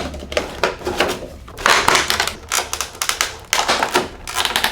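Cardboard and plastic toy packaging being handled and opened: an irregular run of clicks, taps, knocks and rustles, busiest about halfway through and near the end.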